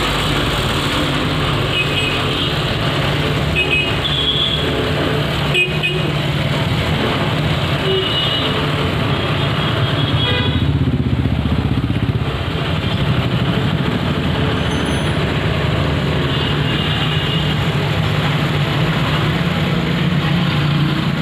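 Steady street traffic with a low engine hum, and several brief vehicle horn toots now and then; a sharp click about five seconds in.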